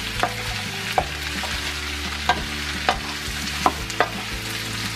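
Chopped onion and bell peppers sizzling in a frying pan as they are sautéed, stirred with a wooden spoon that knocks sharply against the pan about six times.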